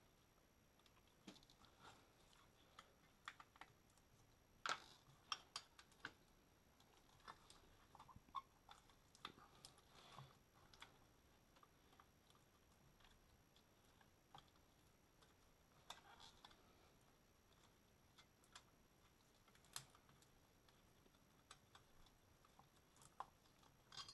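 Faint, irregular clicks and light knocks of plastic and metal parts being handled in a car engine bay, some coming in quick little clusters.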